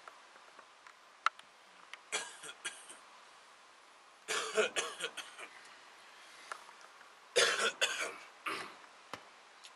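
Men coughing and clearing their throats: several short rough bursts, about two seconds in, near the middle, and twice near the end.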